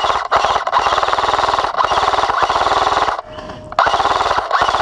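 Airsoft gun firing on full auto: a long burst of about three seconds, a brief pause, then a shorter burst of about a second.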